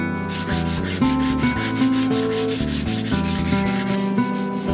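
Sandpaper rubbed by hand along the steel handle of a vintage adjustable spanner in quick, regular strokes, about six a second, over background music.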